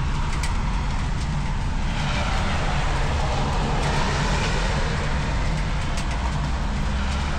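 Outdoor ambience on a rainy day: a steady low rumble under a hiss that swells between about two and five seconds in, with a few sharp raindrop ticks.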